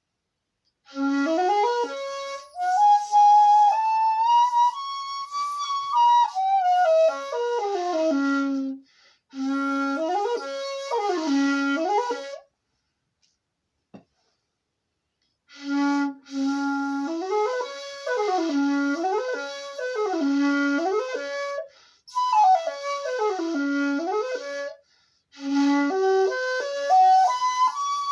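1.9 shakuhachi (end-blown flute) playing phrases that climb from its low note and fall back, followed by quicker up-and-down runs, with short rests between phrases and a longer pause a little before the middle.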